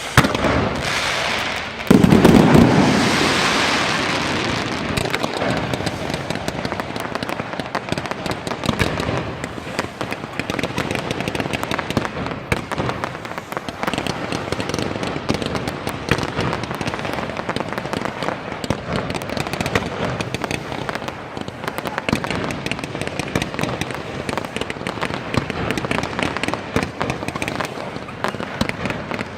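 Fireworks display: a heavy bang about two seconds in that fades over a few seconds, then a dense, unbroken run of rapid pops and bangs, many a second.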